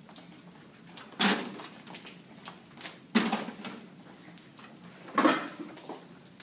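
Three sharp knocks, evenly spaced about two seconds apart, each with a short ringing tail.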